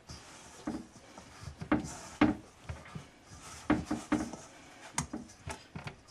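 Hands pressing and turning biscuit dough in a metal mixing bowl on a wooden board: a series of irregular dull knocks with rubbing between them as the dough is brought together.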